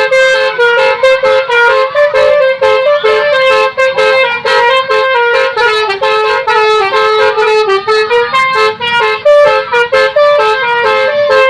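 Basuri "telolet" multi-tone horn playing a quick melody, loud, its notes hopping up and down several times a second.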